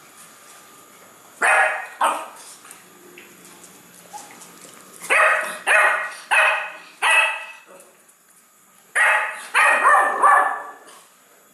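Beagle puppy barking, about ten short sharp barks in three bursts with pauses between, demanding more food from the adult beagles.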